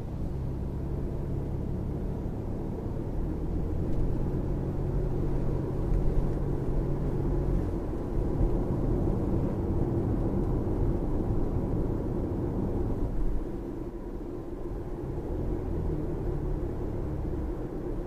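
Road and drivetrain noise inside the cabin of a Lexus RX 450h hybrid SUV driving in traffic. It is a steady low rumble that grows louder from about four seconds in and eases back down about thirteen seconds in.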